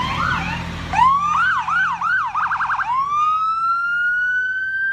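Fire department vehicle's siren: about a second in it gives four rising whoops, then a short burst of rapid yelps, then a long slow rising wail that holds to the end. Under the start, the low, steady rumble of a heavy truck engine passing close by.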